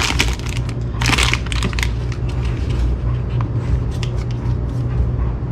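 Clear plastic bags holding engine seals crinkling and rustling as they are handled, with louder crinkles near the start and again about a second in, then scattered small crackles. A steady low hum runs underneath.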